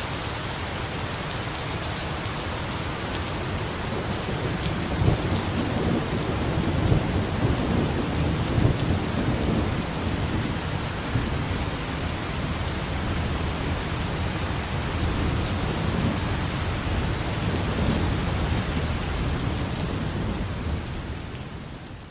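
Heavy rain falling steadily, with thunder rumbling low and rolling, swelling a few seconds in and again later; the sound fades out at the very end.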